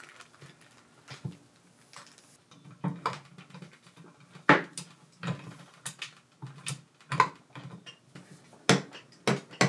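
Irregular metal clinks and knocks as gears and small parts are handled inside the gearbox housing of an Ex-Cell-O 602 milling machine head during disassembly. The sharpest knocks come about halfway through and again near the end.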